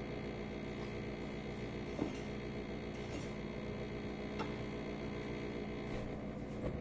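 A few light clicks and taps of a metal measuring cup scooping flour, over a steady background hum.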